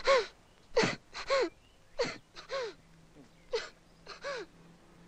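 A man sobbing: a run of short, gasping sobs, mostly in pairs, each rising then falling in pitch, with short silences between.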